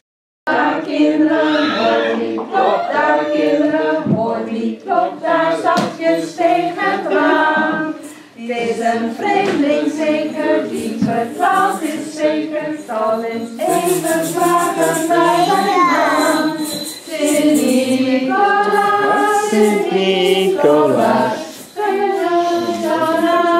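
A group of voices singing a Dutch Sinterklaas song together, with held sung notes throughout.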